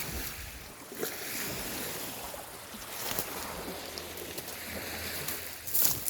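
Lake Superior waves washing on the shore, with wind on the microphone and a few short clicks, the sharpest just before the end.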